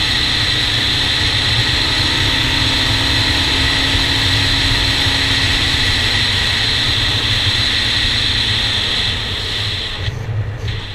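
Honda TRX400EX sport quad's single-cylinder four-stroke engine running at steady road speed, with wind rushing over a helmet-mounted camera. The sound drops away about nine seconds in as the quad slows into a turn.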